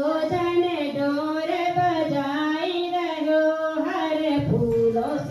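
A woman singing into a handheld microphone, one voice with long held notes.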